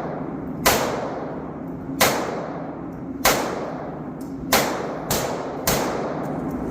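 Six .22 LR shots from a pistol fitted with an Advantage Arms conversion kit: the first four about a second and a quarter apart, the last three quicker, about half a second apart. The kit is firing shot after shot now that its slide lock has been seated correctly.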